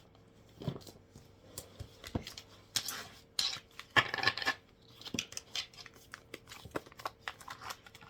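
Tarot cards being handled on a table: light taps and clicks with short sliding swishes as cards are pulled from the deck and laid down, the swishes loudest about three and four seconds in.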